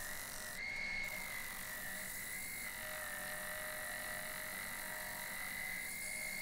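A wood lathe running with a steady high whine that wavers slightly, while a flat sanding board rubs against the face of a large spinning wooden disc.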